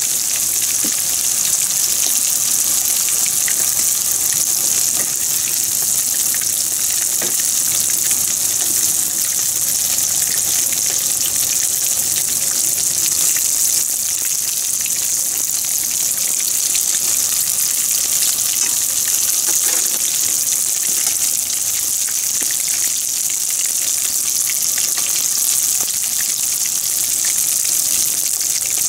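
Panko-breaded pieces deep-frying in a wok of hot oil: a loud, steady, dense sizzle of fine crackling.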